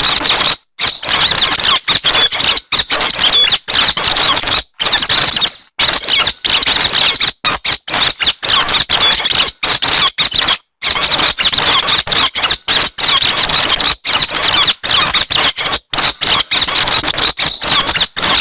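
Continuous, loud, high-pitched chattering song of the bird called 'hec xoan' in Vietnamese, played as a hunters' lure call, broken by many abrupt short gaps.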